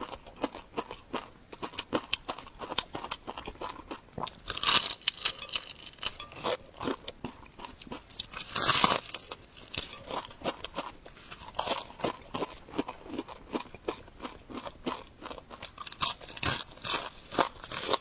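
Close-miked eating sounds: chewing with wet mouth clicks and crunching. Louder crunching comes about four and a half seconds in and again near nine seconds.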